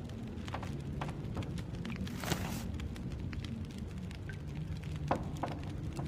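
A pot of stew simmering on the heat: a steady low rumble of bubbling with scattered pops and clicks, and a brief hiss about two seconds in.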